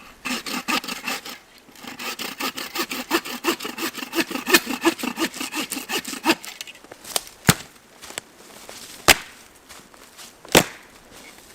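A hand saw cutting through wood in quick, even back-and-forth strokes. The sawing stops about six seconds in, and three sharp wooden knocks follow about a second and a half apart.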